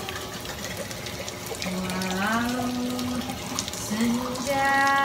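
A woman singing softly in long held, sliding notes, twice, over a steady sizzle of chicken frying in hot oil.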